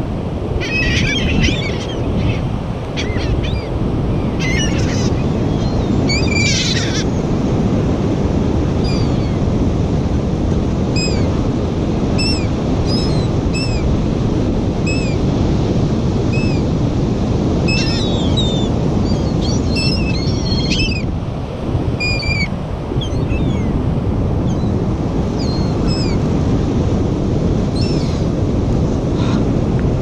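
Gulls giving short, clipped calls again and again, in bursts about a second in, around five to seven seconds, and from eighteen to twenty-one seconds. Underneath runs a steady rush of surf and wind on the microphone.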